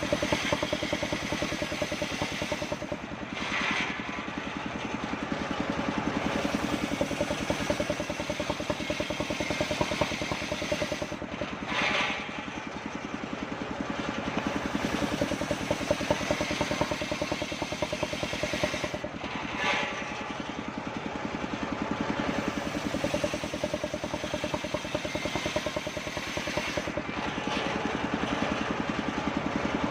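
Engine-driven homemade circular sawmill running steadily, its engine's rapid, even firing heard throughout. About every eight seconds, four times, the tone briefly changes.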